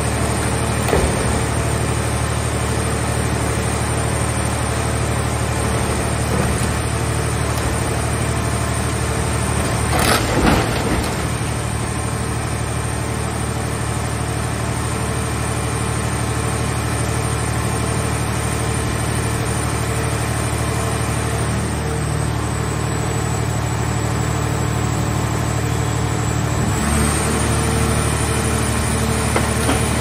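Hydraulic power unit of a movable car baler running with a steady drone while the press works, with a loud crunch of sheet metal about ten seconds in as the car body is crushed. The drone changes tone near the end as the press loads up again.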